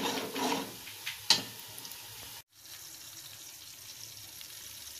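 Chopped onions sizzling as they fry in oil in an aluminium pot, with a metal spoon stirring and one sharp clink against the pot about a second in. The sound drops out briefly halfway through, then the steady sizzle goes on.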